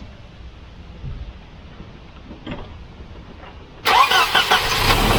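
Quiet at first with a couple of faint clicks, then about four seconds in the Volvo 240's four-cylinder redblock engine starts: a short burst of cranking that catches and runs loudly.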